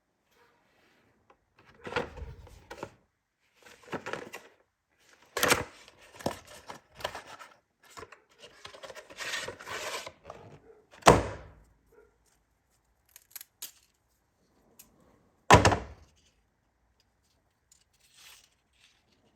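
Handling of a pneumatic file belt sander and its sanding belt, which is not running: scattered clicks, clatter and rustling, with two sharp knocks about four seconds apart in the second half.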